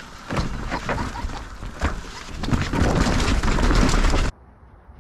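Mountain bike riding down a rooty chute: tyres rumbling and knocking over roots and the bike rattling, louder and denser in the last second and a half, then cut off abruptly a little after four seconds in.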